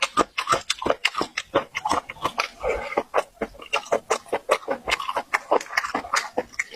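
Close-miked wet chewing and mouth smacking, with rapid crunchy clicks several times a second, from a person eating bamboo shoots with their mouth open.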